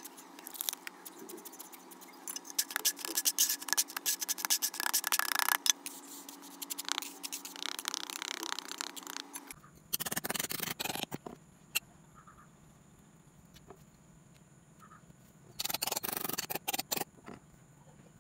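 Damp casting sand in a plastic tub being scraped and crunched by hand, dense and gritty for the first half. Then two short bouts of gritty scraping, about a second each, as an adjustable wrench is pressed and worked into the sand to form a mould impression.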